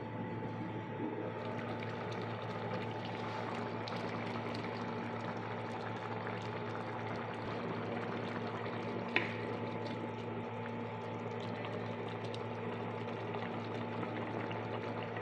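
Prawn curry bubbling and simmering in an open pot on an induction cooktop, over the cooker's steady hum. A single short clink about nine seconds in.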